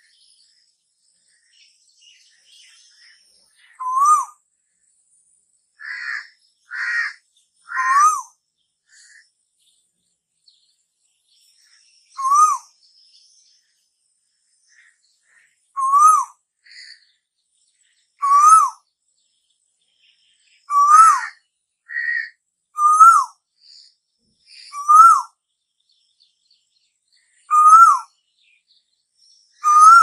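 Asian koel calling: a series of loud, short whistled notes, each rising then dropping, repeated every one to four seconds. About six seconds in, three rougher, harsher notes come close together.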